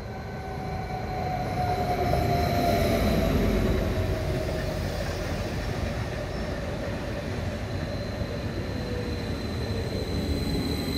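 Stadler FLIRT electric multiple unit pulling into a station alongside: steady rumble of wheels on the rails with a slowly falling whine as the train slows. It is loudest about two to four seconds in.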